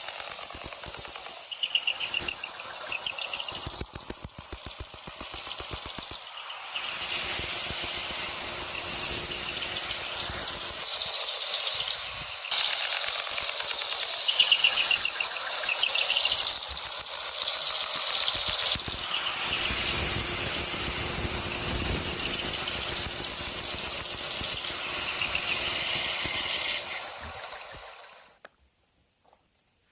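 Sound effect of a decorated truck's engine with a manifold-split exhaust, running with a rapid pulsing beat at first, then steadier and louder in a few steps, cutting off shortly before the end.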